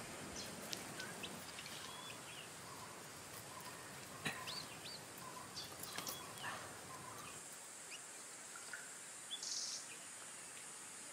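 Faint woodland ambience: scattered short bird chirps and whistles over a steady high-pitched hum, with a few soft clicks.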